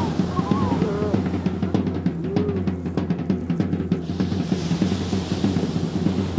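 Live percussion: drums played in a fast, steady, continuous rhythm.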